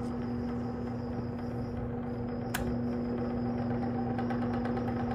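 Vintage Sears box fan running: a steady electric-motor hum over the rush of air from the blades, with a single sharp click about halfway through.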